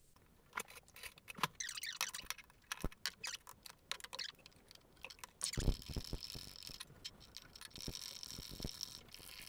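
Glass jars and a metal spoon clinking and knocking while beetroot pieces are put into a glass jar: a run of light clicks, a low thud about five and a half seconds in, then a soft steady hiss.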